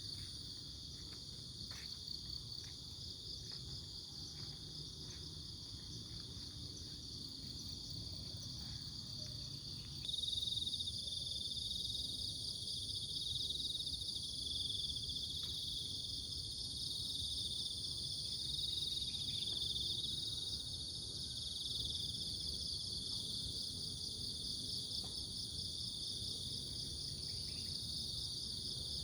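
Crickets chirring steadily in a high, finely pulsing chorus. About ten seconds in, a louder, slightly lower-pitched chirring joins.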